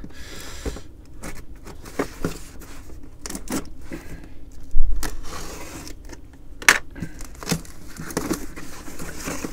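Cardboard shipping case being handled and opened by hand: scattered taps, scrapes and rustles of cardboard, with a loud thump about five seconds in and a sharp click near seven seconds.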